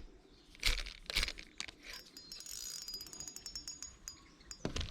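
Spinning fishing reel clicking rapidly for about two seconds while a fish is hooked, with faint knocks and rustles from handling the rod.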